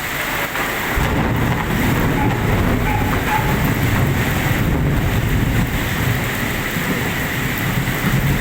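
Heavy rain falling in a thunderstorm, with a deep low rumble that sets in about a second in and continues.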